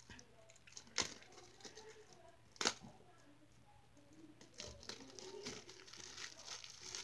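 Faint handling of the packaging and small parts of a miniature pool table: two sharp clicks about a second and nearly three seconds in, then soft rustling of packaging in the second half.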